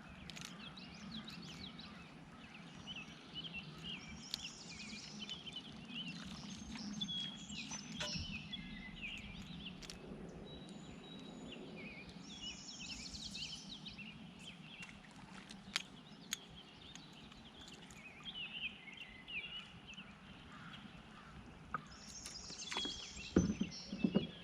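Several songbirds chirping and trilling over a steady low rumble, with scattered sharp clicks and a few louder knocks near the end.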